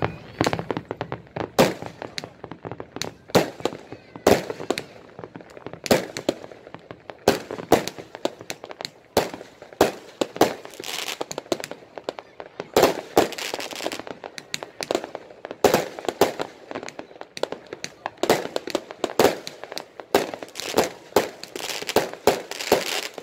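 Aerial fireworks and firecrackers going off: a dense, irregular run of sharp bangs and crackles, several a second, without a break.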